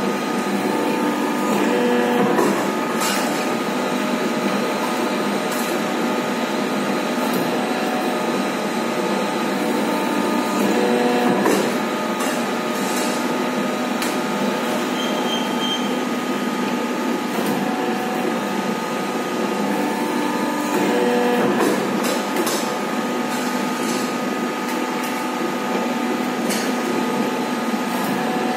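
Hydraulic power pack of a 60-ton deep-draw press running with a steady whine, swelling and shifting in pitch for a second or two about every nine to ten seconds as the ram goes through a drawing stroke. Occasional sharp clicks and clanks.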